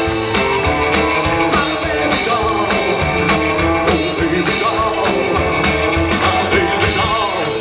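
Live rock and roll band playing, with a steady drum beat under the instruments.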